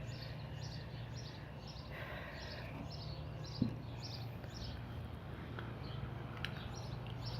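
Faint, evenly repeated high chirps, about three a second, from a small animal, over a steady low hum, with one soft knock midway.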